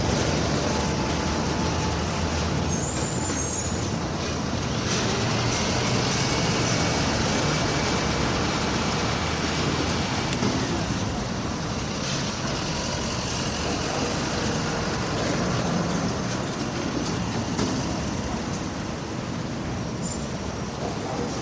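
Steady din of a skyscraper construction site in city traffic: a continuous rumbling wash of machinery and vehicle noise, with a faint thin whine in the middle.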